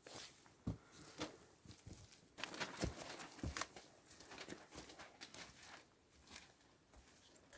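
A quick, irregular series of small knocks, clicks and rustles, busiest and loudest in the middle, with a few dull low thumps among them.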